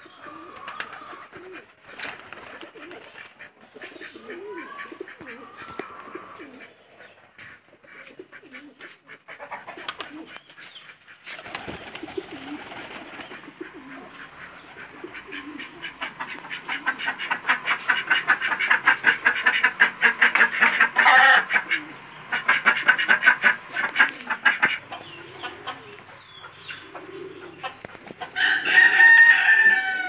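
Domestic pigeons cooing and chickens calling. A loud run of rapid calls fills the middle, and a rooster crows near the end.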